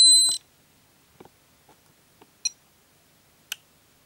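Peak Atlas ESR70 ESR meter's audible alert: a steady high beep that cuts off about half a second in, as the meter shows its capacitance and ESR reading. After it, a few faint clicks as the test probes are held on the capacitor's terminals.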